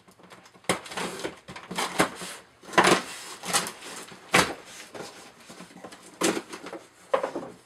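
A cardboard box being opened and its packaging handled, a string of irregular rips, scrapes and knocks.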